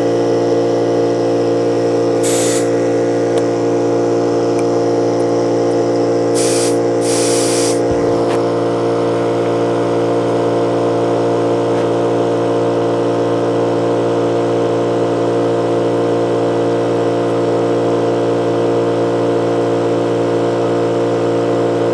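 Air compressor motor running steadily while inflating a small tire, with short bursts of air hissing about two seconds in and twice more around six to eight seconds in as the tire bead is being seated.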